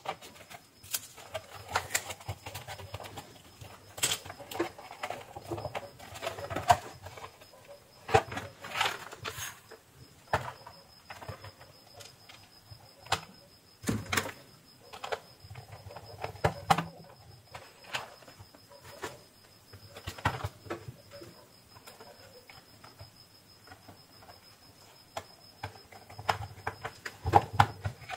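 Irregular clicks, taps and rustles of hands handling a round plastic LED ceiling light: tape, a pen and the LED board knocking against the plastic housing as it is fitted back together.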